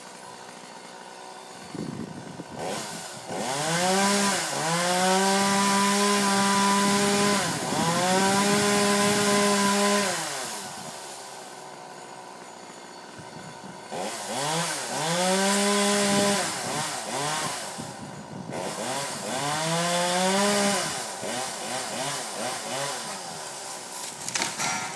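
Chainsaw engine idling, then revved up to a steady high speed held for about three seconds, briefly dipping, held again, and falling back to idle. Two shorter revs follow, then it runs unevenly at a lower speed.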